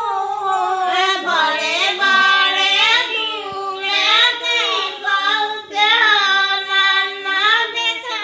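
Women singing a song without instruments, in long held notes that glide slowly up and down.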